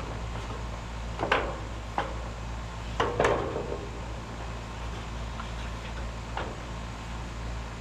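Several sharp knocks and clanks a second or more apart, the loudest pair about three seconds in, over a steady low hum.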